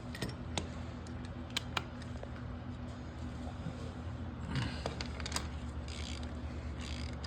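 Scattered small metallic clicks and clinks of a 3/8-inch ratchet and socket being fitted and worked on a dirt bike's oil drain fitting, over a steady low hum.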